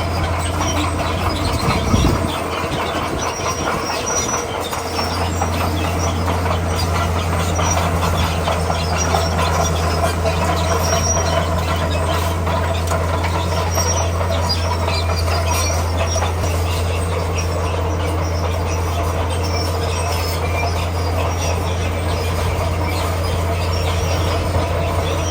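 Komatsu D41P crawler bulldozer working: a steady diesel engine note under load, with squealing and clattering from the steel tracks. The engine eases briefly a couple of seconds in, then pulls steadily again.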